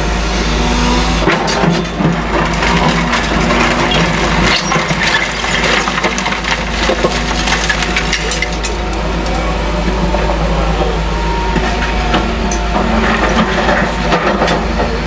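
Caterpillar excavator working demolition debris: its diesel engine runs steadily under a stream of cracking and crunching from debris being broken and moved, thickest in the first half.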